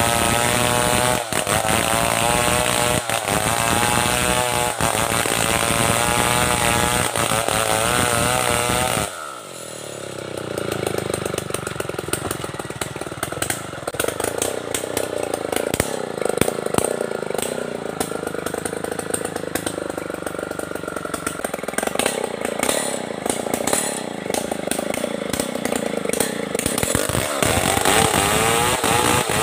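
Stihl 070 two-stroke chainsaw running at full throttle and cutting into the buttress of a large tree, its engine pitch wavering as the chain loads up in the wood. About nine seconds in, the sound breaks off abruptly and comes back thinner and quieter, growing full again near the end.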